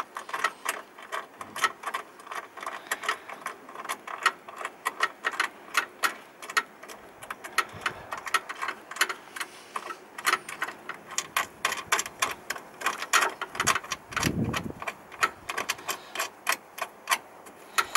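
Ratchet wrench clicking in runs of about four clicks a second as a bolt at the camper van's battery is tightened, with one dull bump about fourteen seconds in.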